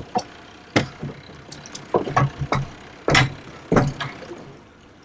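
About seven heavy knocks and thumps against the side of a fibreglass boat, irregularly spaced, as a gaffed tuna is held alongside at the gunwale.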